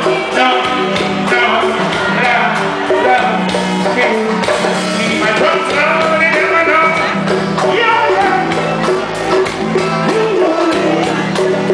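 Live reggae band playing, with a male singer chanting and singing over a steady bass line.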